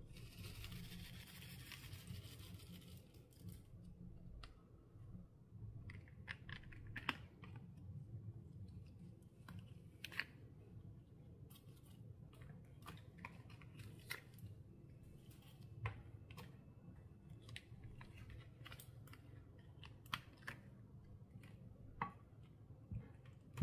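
Clear slime being worked by hand: quiet sticky clicks and pops at irregular intervals, after a soft hiss lasting about the first three seconds.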